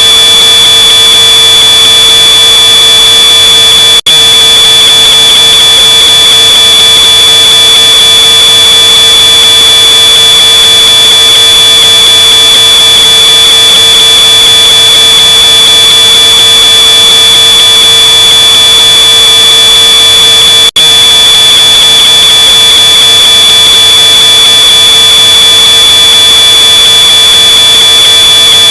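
Smoke alarm sounding one continuous, high-pitched, very loud tone, boosted until it distorts. It drops out for a split second twice, about four seconds in and about two-thirds of the way through.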